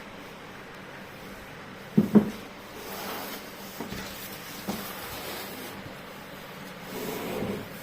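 Handling noises from unboxing a solid-wood home temple: two sharp knocks close together about two seconds in, a few lighter knocks, and soft rustling and rubbing.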